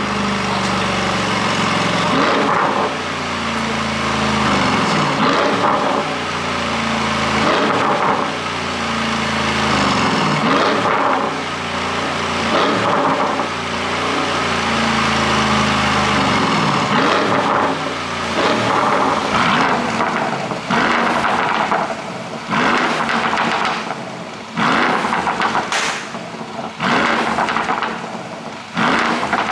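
Mercedes-AMG GLE 63's twin-turbo V8 revved up and down several times. From about halfway through, its exhaust crackles and pops on the overrun as the revs fall, the pops-and-bangs effect of an aftermarket ECU tune.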